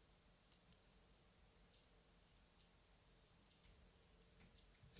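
Near silence with a few faint, scattered clicks of a metal nut being twisted by hand along a bolt.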